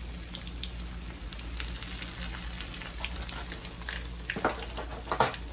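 Panko-breaded chicken cutlets shallow-frying in oil in a skillet: a steady sizzle full of small crackles, with a few sharper clicks near the end.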